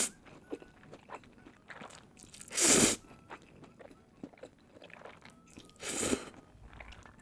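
Close-miked crunching bites into crispy breaded chicken katsu, two loud crunches about three seconds apart, with quieter chewing between them.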